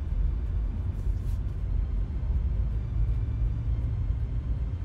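MG Hector SUV being driven on a paved road: a steady low rumble of the car in motion.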